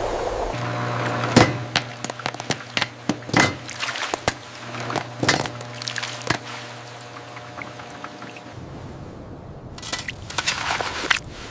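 A run of sharp knocks and clinks over a steady low hum, easing off about two-thirds of the way in, then wet swishing or pouring sounds near the end.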